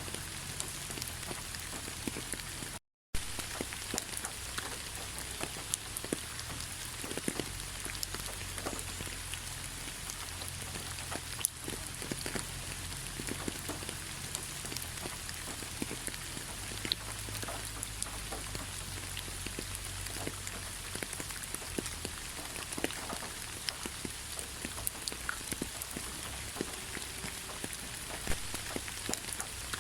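Steady rain falling, with many separate drops landing close by as sharp little clicks over an even hiss. The sound drops out completely for a split second about three seconds in.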